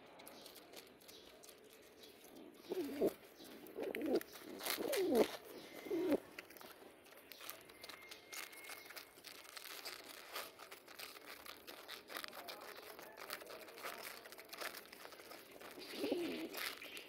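Domestic pigeons cooing: a run of short, wavering coos about three to six seconds in and more near the end. Underneath is a steady patter of faint clicks from beaks pecking pellet feed in a tub.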